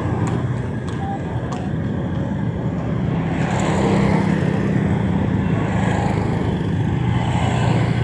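Street traffic dominated by motor scooters and cars going by, with a steady low engine hum that swells as vehicles pass close, about halfway through and again near the end.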